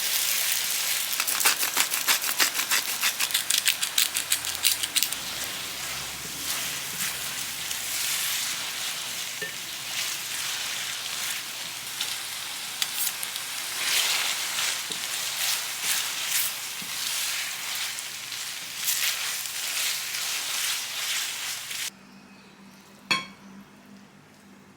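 Food frying in a hot pan: a steady sizzle with dense crackling pops in the first few seconds, thinning out after that. The sizzle cuts off abruptly near the end, and a single sharp click follows.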